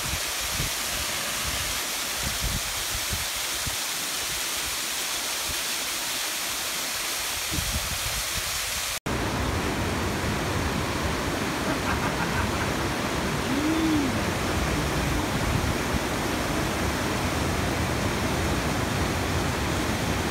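A small waterfall splashing steadily onto rocks; then, after a sudden cut about nine seconds in, river rapids rushing, louder and fuller in the low range.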